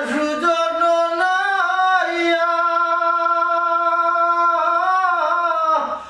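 Solo singing: one voice holds a long, steady note through the middle, with small pitch slides before and after it, and breaks off near the end.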